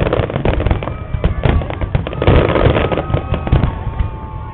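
Fireworks going off in quick succession, a dense run of bangs and crackling, with a few long whistling tones in the second half. The sound is dull and lacks treble, picked up by a poor camera microphone.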